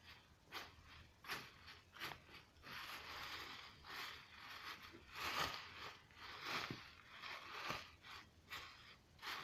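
Fingers poking and squeezing a soft material the way one plays with slime: a faint, irregular string of clicks and crackly squishes, a few each second.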